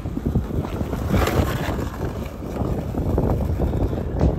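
Skateboard wheels rolling on concrete with a continuous rough low rumble, mixed with wind buffeting the microphone, and a sharper knock near the end.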